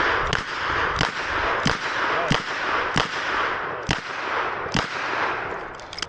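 Smith & Wesson 929 eight-shot 9mm revolver firing a string of seven shots, about one every two-thirds of a second, with the last two a little further apart.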